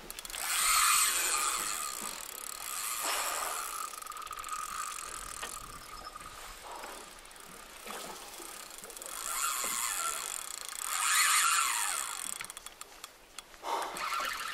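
Spinning reel's drag buzzing as a hooked flathead pulls line off, loudest in two long runs, about a second in and again around ten to twelve seconds in.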